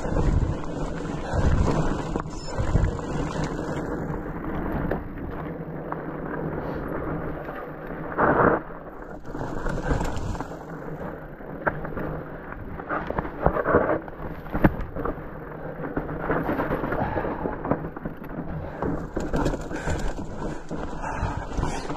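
Rigid fat bike rolling down a rough dirt and rock trail: a continuous rumble and crunch from the wide tyres, with frequent sharp knocks and rattles from the bike over bumps and a brief louder burst about eight seconds in.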